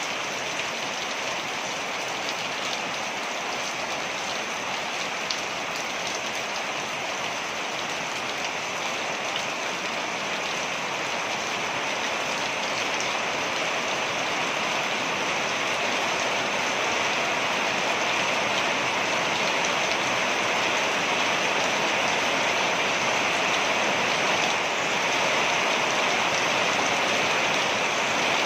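Steady rushing and splashing of a waterfall, getting somewhat louder about halfway through.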